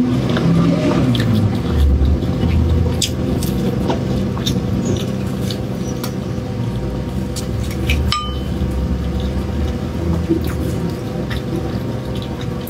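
Close-miked chewing and biting of a crisp-shelled, cream-filled pastry: scattered small crunches and clicks over a steady low hum.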